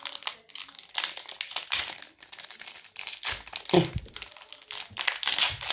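Plastic foil wrapper of a Pokémon booster pack crinkling and crackling irregularly as it is handled close to the microphone.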